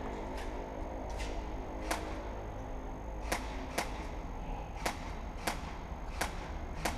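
Airsoft guns firing single shots: about nine sharp cracks at irregular intervals, less than a second apart, over a steady low rumble.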